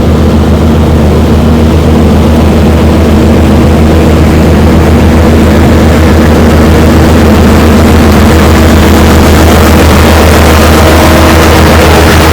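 Heavy farm machinery diesel engine running steadily under load, a loud, even low drone with noise over it.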